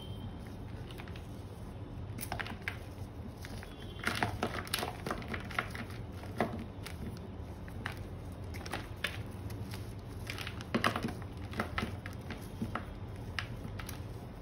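Gym chalk chunks crushed and crumbled by hand, giving irregular soft crunches and crackles, busiest about four seconds in and again near eleven seconds. A steady low hum runs underneath.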